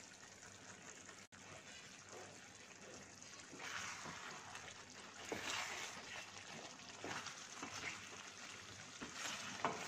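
Faint wet sounds of a thick chicken and chana dal curry in a steel pan being stirred with a wooden spatula, a little louder from about three and a half seconds in.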